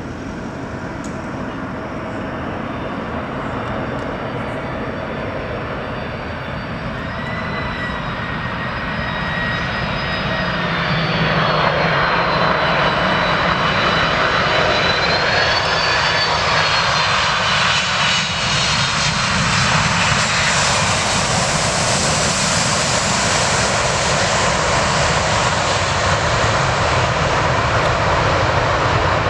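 Boeing 747 jet engines: a roar that grows louder over the first ten seconds or so, with a whine that drifts in pitch, then holds loud and steady.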